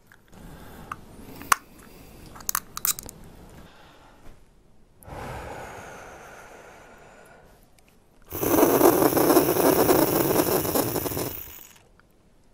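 Clicks from a capsule dry-powder inhaler of the HandiHaler type as it is snapped shut and its green piercing button is pressed, then a breath out. About eight seconds in comes a loud, deep inhalation through the inhaler lasting about three seconds, which stops suddenly as the breath is held.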